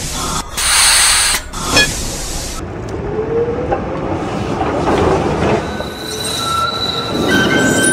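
Tram running on its rails with the wheels squealing. A loud hiss about half a second in lasts about a second, and a high, steady squeal sets in near the end.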